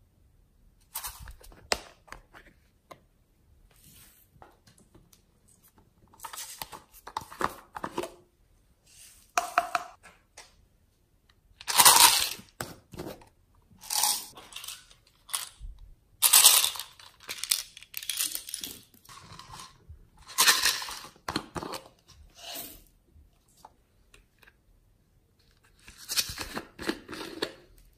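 Handling of small plastic containers of slime add-ins: a series of short crinkling, tearing and rattling noises as lids and seals come off and sprinkles and beads are shaken out into a tray of slime, with brief pauses in between.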